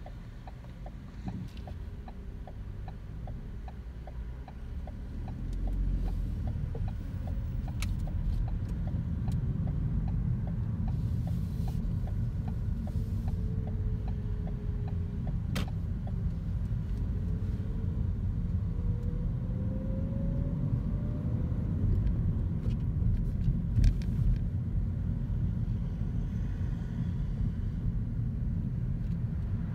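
A car heard from inside the cabin: the turn-signal indicator ticks steadily for the first five seconds or so. Then the engine and road rumble grow louder as the car pulls away, with the engine note rising as it accelerates.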